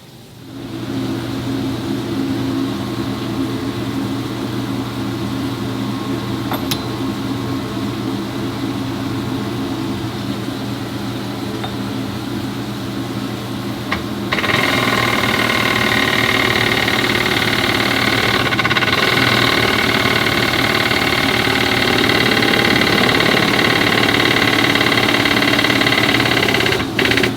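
A machine motor running steadily with a low hum; about halfway through a louder, higher whine with several tones joins in and holds.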